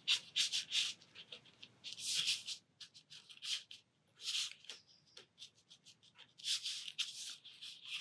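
A black ink pen scratching across textured watercolour paper in short strokes. Groups of quick strokes come near the start, around two seconds in, in the middle and again near the end.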